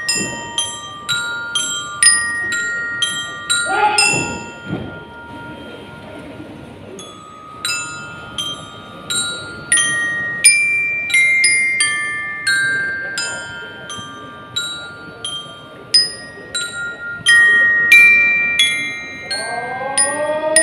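Bell lyres (marching lyre-glockenspiels) playing a slow melody, each struck metal bar ringing on and fading, with a brief lull in the notes about five seconds in.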